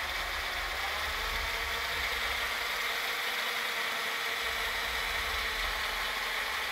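Cordless drill running steadily at speed, spinning a line spool that winds braided fishing line onto it.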